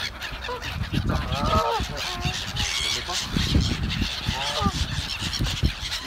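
A flock of gulls calling: loud harsh calls stand out about a second and a half in and again at about four and a half seconds, over a steady chatter from the rest of the flock.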